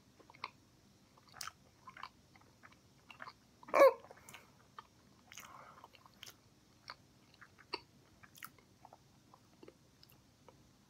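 A person chewing a mouthful of Eggo waffle with syrup, mouth closed: soft wet smacks and clicks every half second or so, with one louder short voiced sound about four seconds in.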